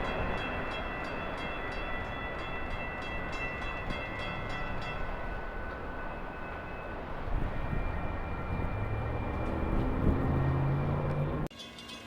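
A train rolling past: a steady, dense rumble of wheels on rail with thin high-pitched tones above it. A lower tone rises in the last few seconds, then the sound cuts off suddenly near the end.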